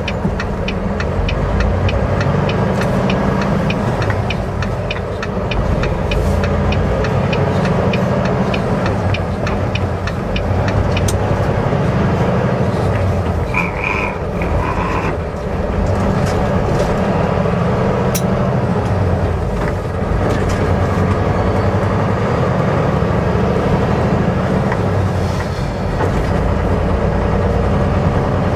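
Semi truck's engine running with steady road noise, heard from inside the cab. A fast regular ticking runs through roughly the first eleven seconds, and a short double beep sounds about fourteen seconds in.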